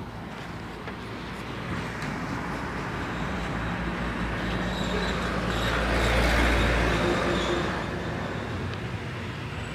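A motor vehicle passing by on a road, its engine and tyre noise growing louder over several seconds, peaking and then fading away.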